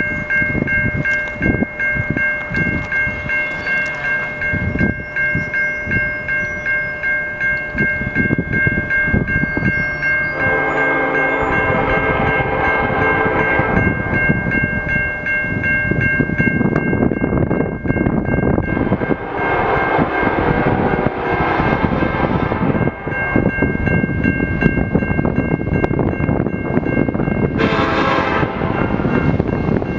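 An approaching diesel freight locomotive's air horn sounds several long blasts, the first about ten seconds in and the last near the end, over the low rumble of the train. Before the horn, a grade-crossing bell rings, pulsing about twice a second.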